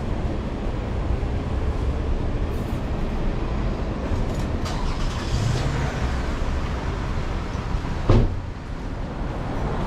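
Street ambience with steady traffic noise and a low rumble. A single sharp thump about eight seconds in.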